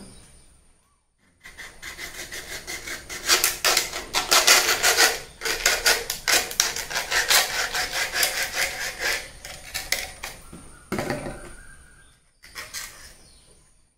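A knife sawing back and forth through a thin plastic water bottle: a fast run of rasping strokes, several a second, which stops near the end as the bottle comes apart.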